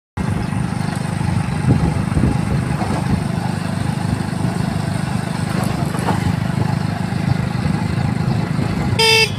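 Motorcycle riding at speed: steady wind rush buffeting the microphone over the engine running. A short pitched sound comes near the end.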